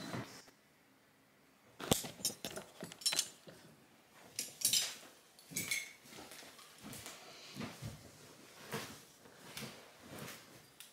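Cutlery and dishes handled: a sharp knock about two seconds in, then irregular clicks and clinks, one of them ringing briefly.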